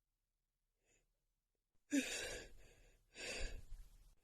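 A woman's two breathy gasps about a second apart, starting about halfway through, as she catches her breath during an allergy sneezing fit.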